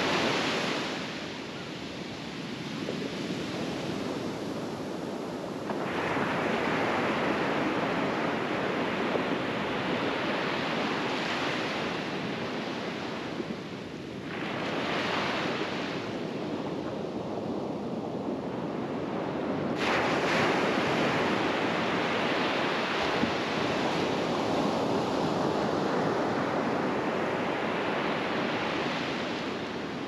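Small ocean waves breaking on a sandy beach and washing up the shore, the surf swelling and fading in surges every few seconds.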